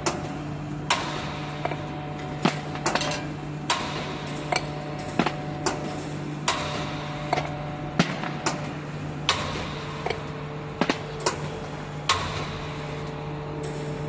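Automatic metal bar cutting machine running with a steady hum, while freshly cut steel billets drop into a steel basket with sharp metal clanks about every second or so.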